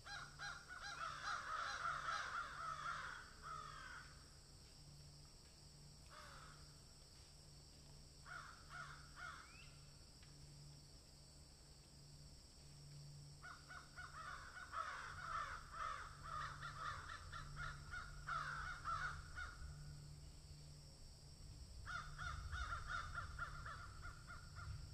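Harsh, rapid caw-like animal calls in about five bursts, the longest near the middle.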